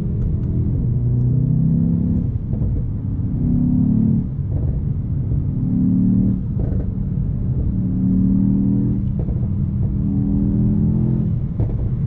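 Mercedes-AMG E63 S 4.0-litre twin-turbo V8 under load while driving, its engine note climbing in pitch in about five surges, each broken off by a short dip.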